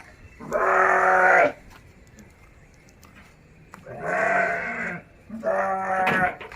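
Goats bleating: three calls of about a second each, the first near the start and the other two close together near the end.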